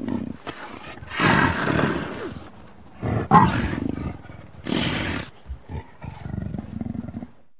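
A big cat snarling and roaring in about four loud bursts, the loudest a little over three seconds in, followed by lower growling that stops near the end.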